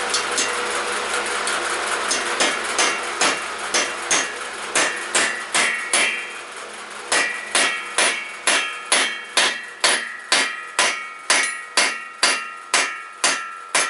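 Brass hammer tapping a valve-guide drift tool to drive a valve guide through an air-cooled VW cylinder head, a couple of dozen sharp metallic strikes with a short ring after each. The blows start slow and irregular and settle into a steady rhythm of about two and a half a second from about halfway through.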